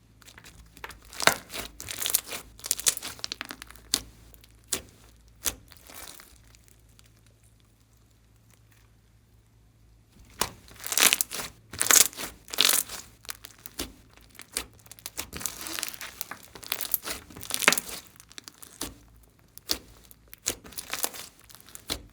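Glossy slime being squished and stretched by hand, giving clusters of sticky crackling pops with a pause of a few seconds in the middle.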